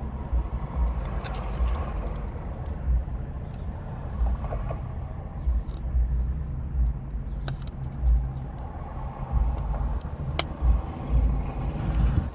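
Low rumble of a running vehicle engine: a steady hum with irregular throbbing, and a few short sharp clicks.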